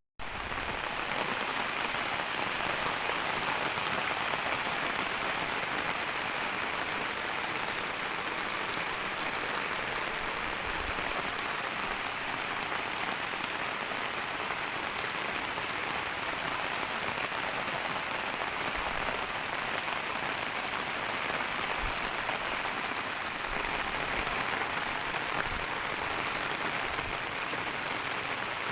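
Steady rain falling: an even, continuous hiss of drops that holds at the same level throughout.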